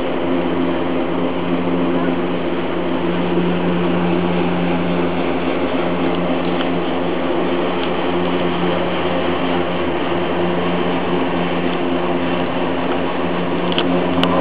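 Steady mechanical hum with a constant low pitch from a funitel cabin running along its haul ropes, heard from inside the cabin, with a few faint clicks near the end.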